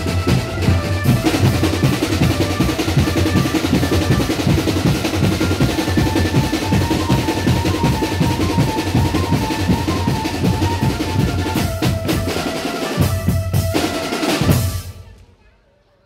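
A marching drum band plays fast snare rolls and bass-drum beats, with a high stepping melody line over the drums. Near the end the music falls away quickly to near silence.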